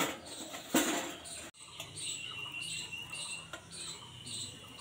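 Small birds chirping repeatedly in the background, short high chirps about twice a second, with a held high whistle partway through. A brief louder noise comes about a second in.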